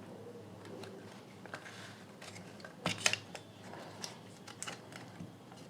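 Small plastic clicks and handling noises as a Bluetooth speaker's circuit boards are worked loose, with two sharp clicks about three seconds in.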